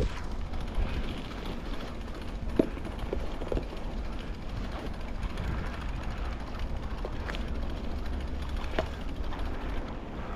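Riding a bicycle: a steady low rumble of wind on the microphone and tyres on the path, with a few sharp clicks and rattles from the bike scattered through.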